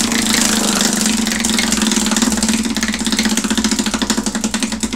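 Spinning prize wheel, its pointer clicking against the pegs in a fast run of clicks that gradually slows as the wheel loses speed.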